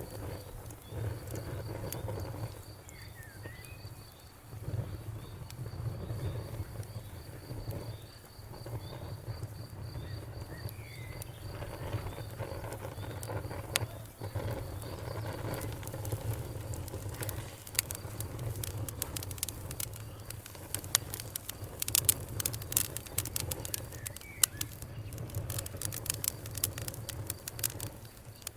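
Campfire crackling, its sharp pops growing much more frequent in the second half, over a low steady rumble. Through the first half a cricket chirps in a steady high-pitched pulse, and a few short chirps are heard.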